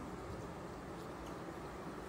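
Honeybees humming steadily around an open hive, with a few faint clicks.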